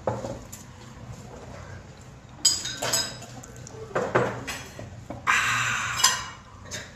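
Tableware being handled during a meal: dishes, cutlery and glasses clinking and knocking in separate sudden strokes, with a noisier stretch of nearly a second a little past the middle.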